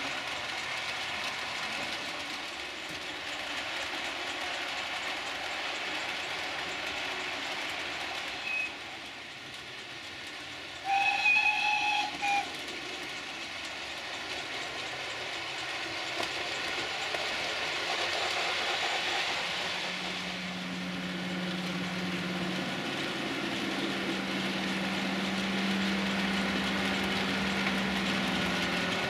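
DCC sound-fitted model steam locomotive running with its train on the layout. Its sound unit gives a short whistle pip, then a louder whistle of about a second and a half a few seconds later. About two-thirds of the way through, a steady low diesel engine drone joins in.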